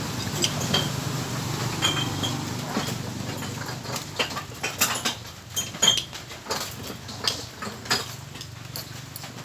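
Metal spoons and forks clinking and scraping against ceramic bowls and plates during a meal. Sharp clinks, some with a brief ring, come more often in the second half.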